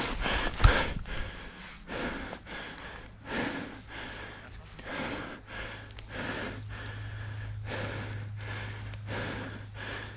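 A person's heavy breathing close to the microphone, coming in quick repeated breaths, with a faint steady low hum in the second half.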